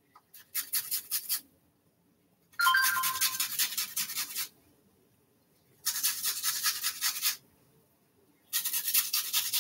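Onion being rubbed on a hand grater: four runs of quick rasping strokes, about five or six a second, with short pauses between the runs.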